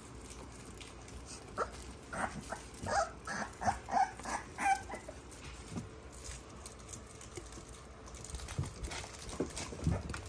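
Young bulldogge puppies yipping: a quick run of about eight short, high yips starting a second or two in and lasting about three seconds, followed near the end by soft thumps and patter of paws and toys on the carpet.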